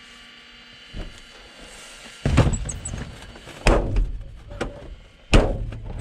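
A small knock about a second in, then three loud, heavy thumps about a second and a half apart.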